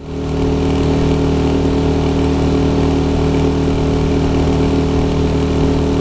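Boat's outboard motor running steadily at cruising speed, a constant engine drone that cuts in suddenly at the start.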